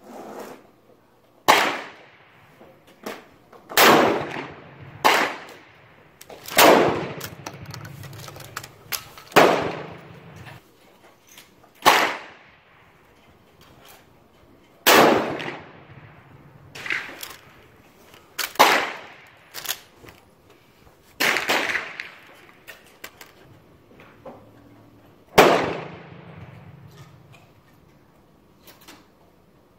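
Gunshots on a shooting range's firing line: about a dozen sharp reports at irregular intervals, a few seconds apart, each followed by a short echoing tail.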